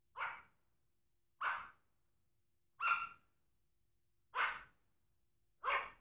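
Pug barking: five single, separate barks, evenly spaced about a second and a half apart.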